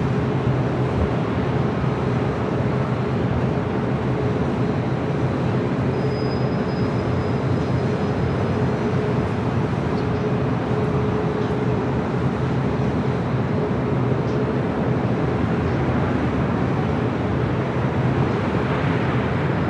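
Steady airport noise: a continuous low rumble and hum of distant jet engines, unchanging throughout with no distinct events.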